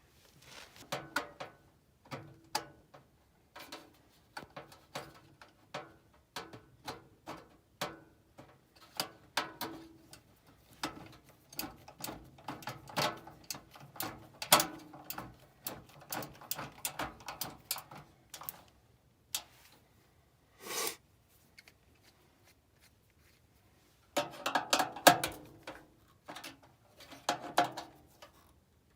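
Irregular metal clicks, knocks and rattles from handling and fastening a gas furnace's blower motor and blower housing, with a short scrape about two-thirds of the way through and a busier run of knocks near the end.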